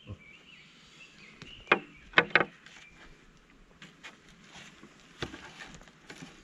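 Sharp knocks of wooden boards being handled: three close together about two seconds in and one more near the end. Faint bird calls sound behind them.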